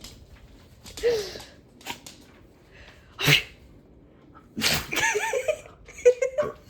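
Dog sneezing again and again in a fit, a series of sharp, separate sneezes a second or so apart.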